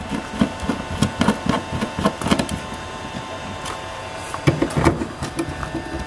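Hand screwdriver driving the mounting screws of a plastic LED marker light into a bus's side panel: a quick run of small clicks and knocks for the first couple of seconds, a lull, then more near the end.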